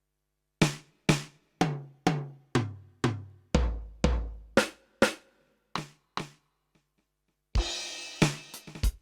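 Yamaha DTX720k electronic drum kit's sampled drum voices played as single hits about two a second, each ringing out, several with a deep kick-drum boom. After a pause of about a second, a cymbal crash comes in near the end, with more drum hits under it.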